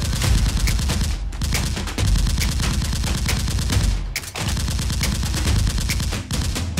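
Rapid automatic gunfire sound effect, continuous volleys of shots with brief breaks about a second in and about four seconds in.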